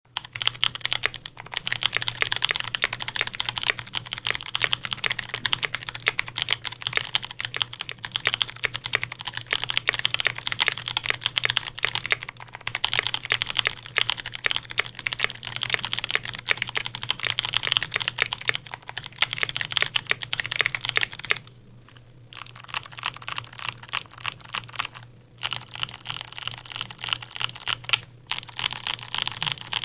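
Fast, continuous typing on a custom mechanical keyboard, a KBD75v3.1 with a brass plate, lubed clicky Kailh Speed Bronze switches and GMK keycaps, each keystroke a sharp click. The typing pauses briefly a few times in the second half.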